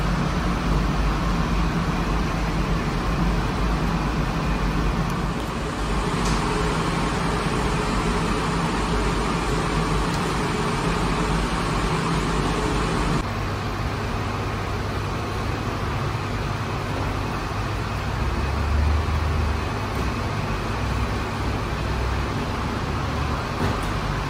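Steady mechanical drone and rush of bakery machinery, with a low hum underneath. Its tone changes abruptly about thirteen seconds in.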